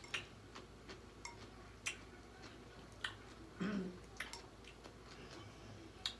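Faint eating sounds of someone eating seafood boil with her hands: irregular sharp smacks and clicks of chewing and picking at the food, about a dozen, with a louder, lower one about three and a half seconds in.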